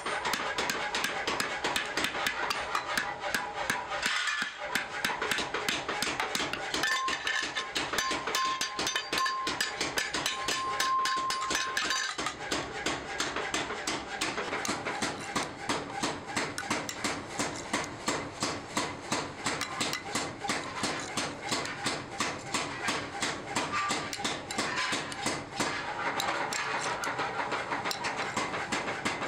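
A hammer tapping on metal in a fast, steady rhythm of a few strikes a second: riveting a wooden handle onto a meat cleaver on a steel anvil block.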